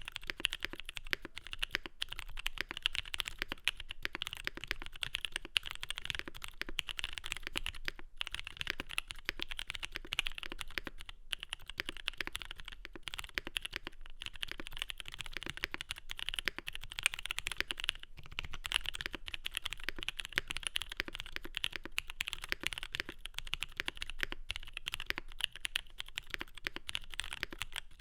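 Continuous fast typing on a mechanical keyboard with lubed and filmed SP Star Purple switches on a polycarbonate plate under GMK keycaps, a dense run of keystroke clacks with brief pauses about 8, 11 and 18 seconds in.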